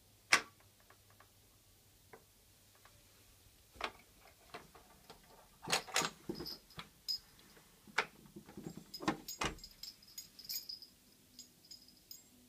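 SureFlap microchip cat flap: a sharp click right at the start, then a run of small clicks, knocks and rattles as a cat pushes the flap open and squeezes through, busiest between about six and ten seconds in.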